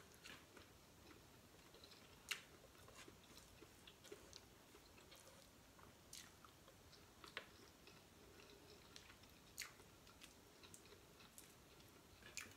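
Faint chewing of shrimp, with a few scattered sharp clicks.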